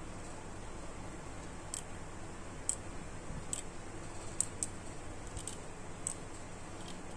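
Small sharp plastic clicks from an S.H.Figuarts Ultraman Ginga figure's head and neck joint as it is turned and worked by hand, about nine at irregular spacing starting a couple of seconds in, over a steady low background hum.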